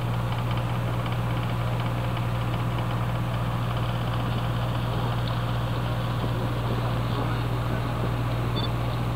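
A tour junk's engine running steadily underway, a constant low hum heard from on deck.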